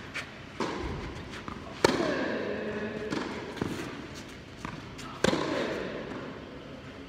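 Tennis balls struck by racquets in a rally, four hits about a second and a half apart, echoing in an indoor hall. The two loudest strikes come with a drawn-out, falling grunt from the hitter.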